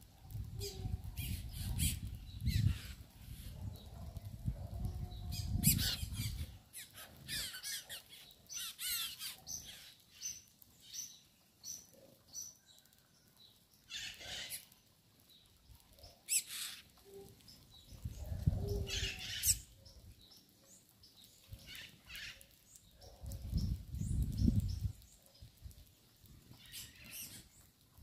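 A flock of small seed-eating birds at a grain feeder: scattered sharp chirps and chip calls, with a run of short high notes about twice a second near the middle. Three bursts of low rumble come at the start, about two-thirds through and near the end.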